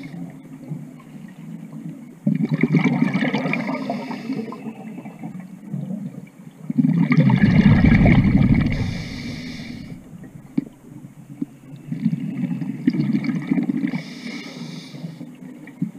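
A scuba diver breathing through a regulator underwater: bursts of exhaled bubbles come about every five seconds, the loudest about seven seconds in, with quieter stretches between breaths.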